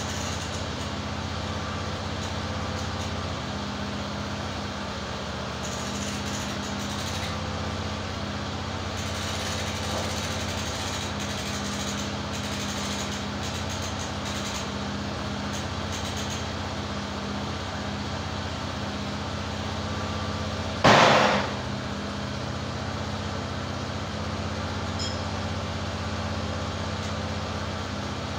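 The EZ Boardwalk 40 sawmill's gasoline engine runs steadily at idle while the squared log is rolled over with the mill's log turner. There are light clanks in the first half and one loud thud about three quarters of the way through.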